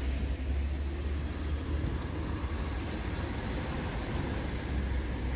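Steady low rumble of vehicle noise, with an even hiss above it.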